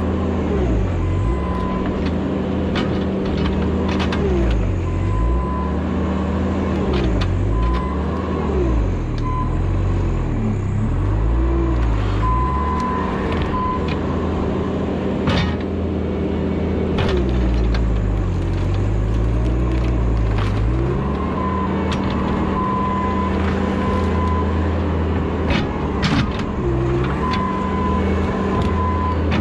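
Bobcat T650 track loader's diesel engine working hard while digging out a stump, its pitch rising and falling again and again as the hydraulics load it. A backup alarm beeps in short runs, and the bucket knocks now and then against roots and ground.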